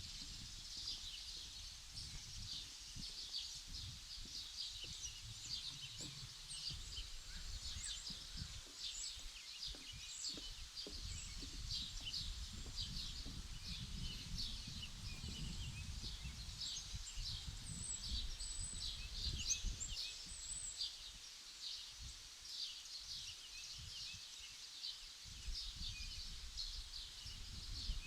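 Many small birds chirping in quick, overlapping short notes, over a low, uneven rumble.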